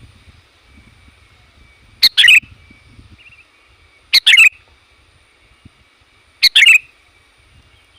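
Sooty-headed bulbul (kutilang) giving three loud, short chattering calls about two seconds apart, each a sharp note run straight into a quick burbling phrase. It is a lure call for drawing wild bulbuls.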